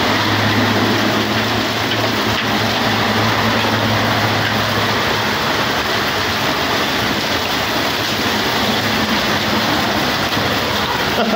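Heavy hail and rain falling steadily in a loud, dense hiss, heard from under a garage roof. For the first few seconds a car driving through the flooded, hail-covered street adds a low hum.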